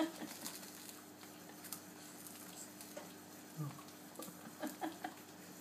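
A toddler nibbling and chewing a Wotsit cheese puff: faint, sparse crunches and mouth clicks, a few slightly louder ones past the middle, over a faint steady hum.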